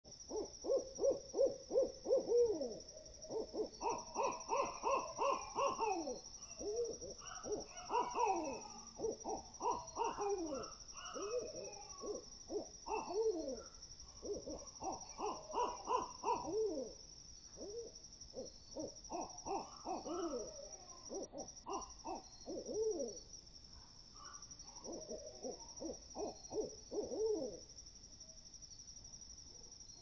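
Owls hooting and chattering in excited bouts of rapid, short, falling notes with brief pauses between bouts, over a steady high insect trill.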